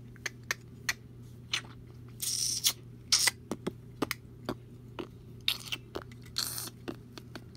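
Plastic LEGO pieces being handled: a run of sharp clicks and taps as bricks are picked up and fitted together, with a few short rustling scrapes.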